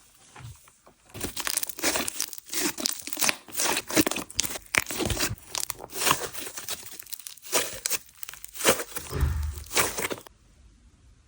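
Sand-texture slime being stretched and squished by hand, giving dense, gritty crackling and crunching that stops about a second before the end.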